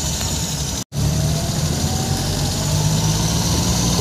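Steady car engine and road noise heard from inside a moving car. The sound drops out completely for a split second about a second in.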